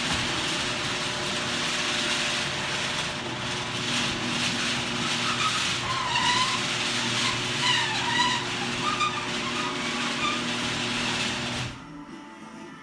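Garage door opener moving the door, its motor running steadily, with short squeaks from the moving door partway through. It cuts off suddenly near the end.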